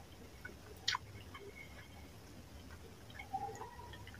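Fingers mixing rice into fish curry and picking at the fish on a plate: faint soft wet squishes and small clicks, with one sharper click about a second in.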